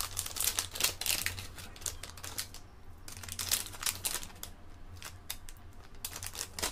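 Clear plastic parts bag crinkling and rustling in irregular spells as it is handled and opened, over a low steady hum.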